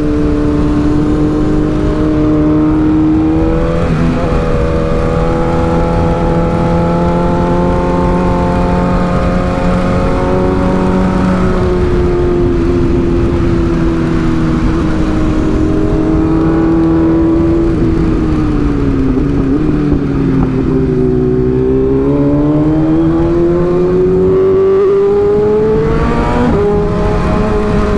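Sport motorcycle engine heard from the rider's seat while riding through bends, a steady engine note that dips about two-thirds of the way through and then climbs again as the throttle opens. Wind rush on the helmet-mounted microphone under it.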